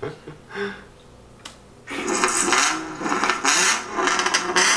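Straight-piped Nissan VQ35DE 3.5-litre V6 exhaust revving, heard through a laptop speaker: a harsh, horrible rasp. It starts about two seconds in.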